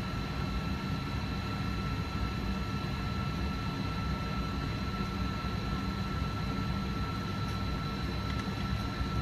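A McDonnell Douglas MD-88's rear-mounted Pratt & Whitney JT8D turbofans at idle, heard inside the cabin: a steady low rumble with two steady whining tones, one higher than the other.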